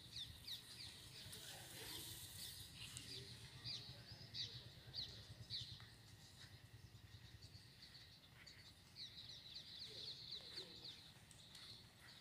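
Faint chirping of birds: quick runs of short, high, falling chirps, thickest about nine to eleven seconds in, over a low steady hum.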